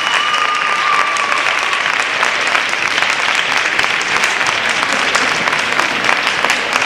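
Audience applauding, a steady dense clapping, with a held high whistle-like tone over it for about the first two seconds.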